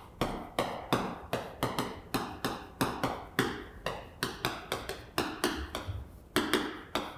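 Chalk clicking against a chalkboard with each stroke of handwriting, about three sharp taps a second.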